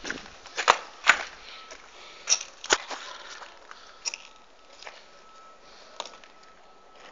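Footsteps crunching on rubble and broken debris: a few sharp, uneven steps, loudest in the first three seconds, then softer ones.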